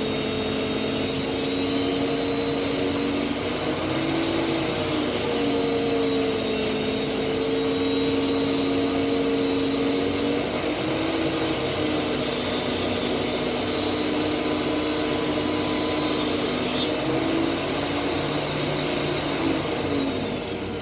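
Grizzly G0959 12-inch planer-jointer with a helical cutterhead running under a steady whoosh from its 1.5 hp dust collector. The motor's pitch shifts a few times as boards feed through the cutter, and near the end it begins to fall as the machine winds down.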